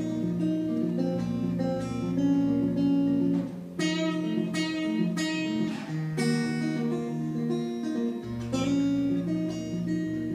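Solo acoustic guitar playing an instrumental passage of changing chords, with a run of sharper strums in the middle.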